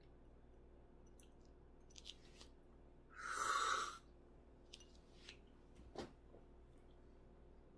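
A person slurping a sip of tea, one noisy slurp of about a second a few seconds in, with a few faint clicks before and after.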